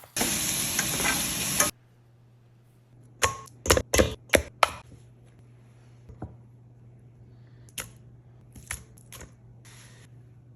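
Kitchen cooking sounds: a loud hiss for about a second and a half that starts and stops abruptly, then a quick run of about six sharp knocks, and a few fainter clicks near the end.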